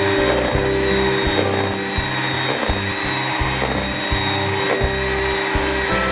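Background music with a regular beat and a bass line that changes note about every half second, over a steady high whine like a small kitchen-appliance motor.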